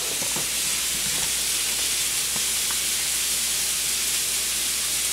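Venison roast sizzling steadily as it sears over high heat in a frying pan, a constant hiss with a few faint ticks.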